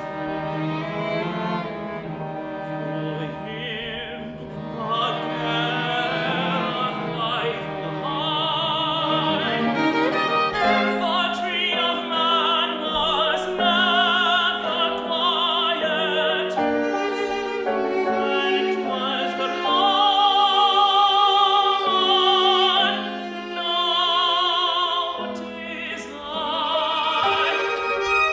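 Classical art song: a tenor singing with a wide vibrato over a bowed string accompaniment, swelling to a loud held note about two-thirds of the way through.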